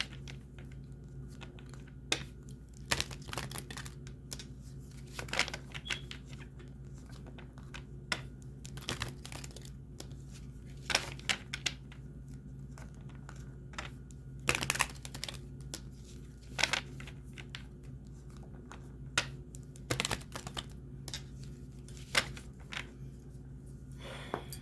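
Tarot cards being shuffled and handled: irregular rustles and sharp snaps of card stock, scattered unevenly, over a faint steady hum.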